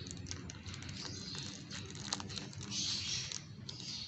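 Rustling and small clicks from handling the betta fish's plastic shipping bag as it is opened, loudest about three seconds in.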